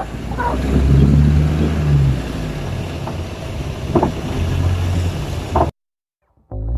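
Wind buffeting the microphone over the steady low rumble of a pickup truck's engine and road noise, heard from the open bed of the moving truck. The sound cuts off suddenly near the end.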